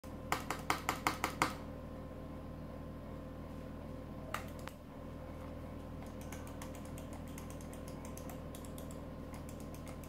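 Computer mouse buttons clicking: a quick run of about eight loud clicks in the first second and a half, two more clicks near the middle, then a string of fainter clicks in the second half as the buttons are pressed with the mouse held in the hand.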